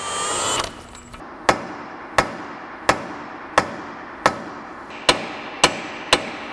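A cordless impact wrench runs briefly on a front axle nut and fails to free it. Then a steady series of sharp metallic knocks follows, about one every two-thirds of a second.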